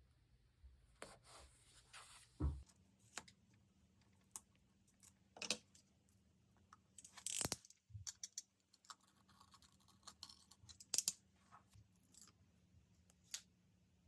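Paper and stationery being handled on a desk: scattered rustles, taps and small clicks, with a low thump about two and a half seconds in, a louder rustle or tear about halfway through, and a sharp click near the end.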